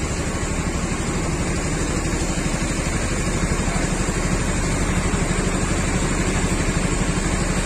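A bus's diesel engine idling steadily, growing slightly louder over the stretch.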